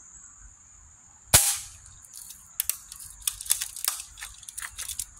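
Daisy Buffalo Bill lever-action BB gun firing once, a single sharp crack a little over a second in, followed by several lighter clicks.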